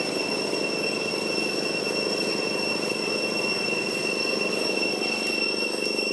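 Steady high-pitched insect drone, typical of cicadas in the forest, holding one unbroken whine over a lower steady hum.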